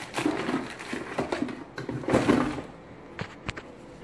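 A spoon stirring and scraping through wet cooked collard greens in the Instant Pot's stainless steel inner pot, in irregular strokes that die down after about two and a half seconds, followed by a couple of light clicks.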